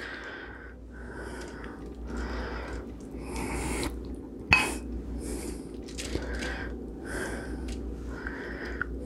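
Barbecue sauce being slathered onto a rack of baby back ribs: repeated short, wet swishing strokes, about one or two a second, with a sharp click about four and a half seconds in.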